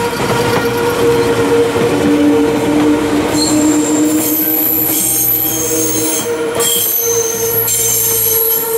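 Red Meitetsu electric commuter train passing close by on a curve, its wheels squealing in steady shrill tones over the rumble of the cars on the rails. Higher squeals join in about three and a half seconds in.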